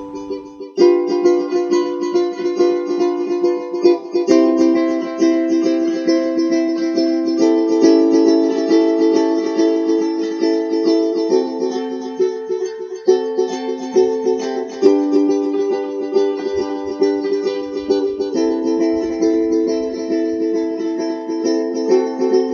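Ukulele strumming chords in a steady, quick rhythm, the chord changing every few seconds.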